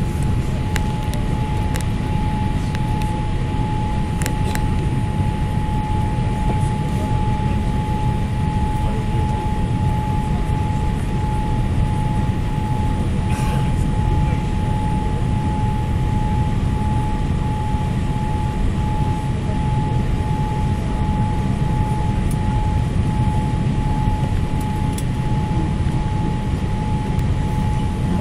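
Boeing 787 Dreamliner cabin noise on descent for landing: a loud, steady low rumble of engines and airflow with a steady high whine running through it.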